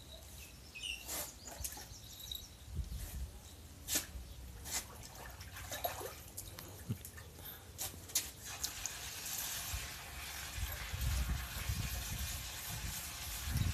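Water splashing and dripping in a plastic tub as a puppy is washed by hand, with scattered small knocks and drips at first and a steadier splashing hiss from a little past halfway.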